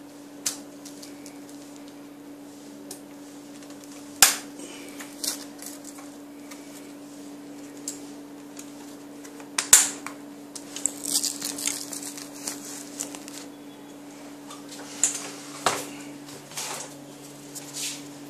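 Hands fitting a fabric seat pad onto a high chair frame: velcro straps and fabric rustling and crackling, with several sharp clicks and knocks against the frame. A steady low hum runs underneath.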